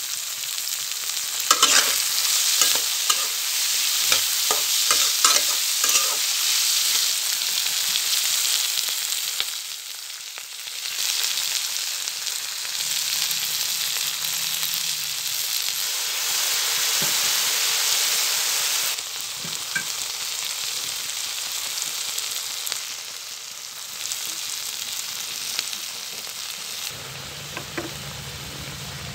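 Onions and green chilies sizzling as they fry in oil in a wok, with a spatula knocking and scraping against the pan in the first few seconds. The sizzle quietens near the end.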